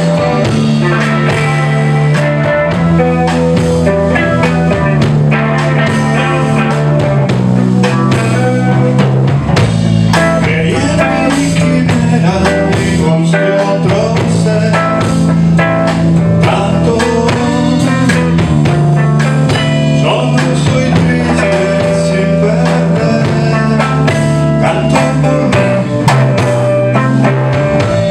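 Live rock trio playing: electric guitar, electric bass and drum kit, loud and continuous.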